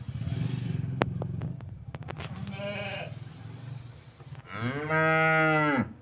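Cattle bawling: one loud call about a second and a half long near the end, held at an even pitch, and a shorter, fainter call around the middle.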